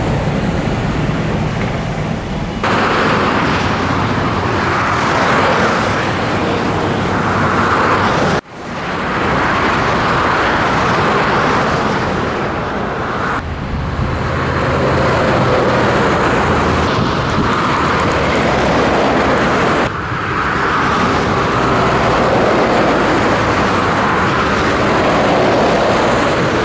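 Scania truck engine running with road noise at steady speed, a low engine hum under a hiss of tyres and wind. The sound changes abruptly four times, about every five to six seconds, once dropping out briefly and fading back in.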